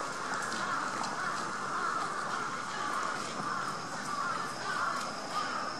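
Crows cawing in the trees, many calls overlapping into a continuous chorus.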